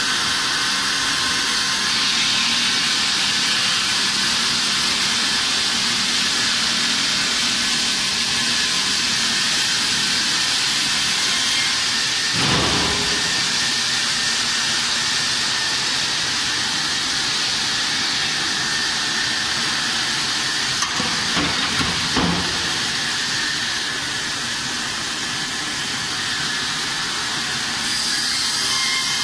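Joborn CNC bridge saw's water-cooled diamond blade cutting a stone slab: a steady, loud hiss, with a thump about twelve seconds in and a few knocks around twenty-one to twenty-two seconds.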